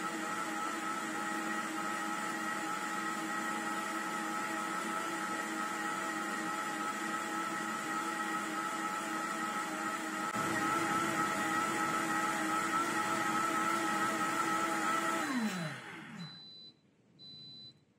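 High-speed blender's motor running steadily, pureeing apple, celery and cucumber with water into juice. It grows a little louder about ten seconds in. Near the end the motor winds down with a falling pitch as the program finishes, followed by a few short high beeps.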